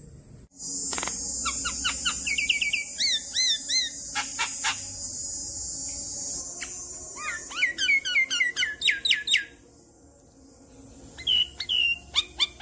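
Javan myna calling: strings of short whistled chirps and fast chattering notes over a steady high hiss for the first six seconds. After a brief lull, a run of loud, sharply falling whistles near the end.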